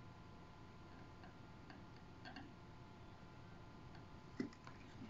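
Quiet work sounds at a soldering bench: a few faint, sparse ticks and light taps of the soldering iron and solder wire on a perfboard, with one small knock about four and a half seconds in, over a faint steady hum.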